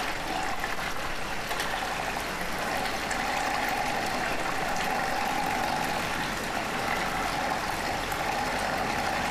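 Electric hand mixer running at a steady speed, its beaters whisking thin crêpe batter in a glass jug.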